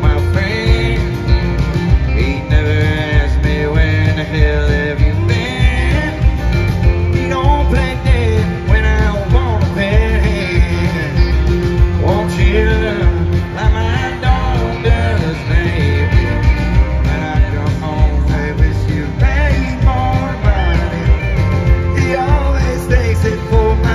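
Live country band playing: a male lead vocal over acoustic guitars, keyboard, bass and a steady kick-drum beat.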